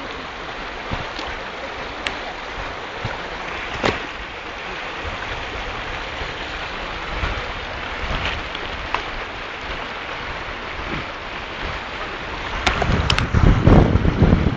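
Steady rushing of a river flowing over a stony bed, with a few sharp clicks. Near the end a loud low rumble from wind or handling on the microphone comes in over it.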